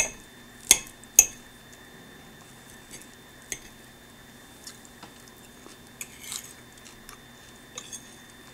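Metal fork clinking and scraping against a plate while picking up salad: three sharp clinks in the first second and a half, then fainter scattered clicks and scrapes.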